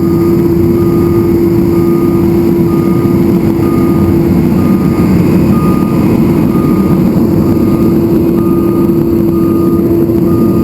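Heavy maintenance truck and excavator running loud and steady with a constant hum, while a reversing alarm beeps a little faster than once a second.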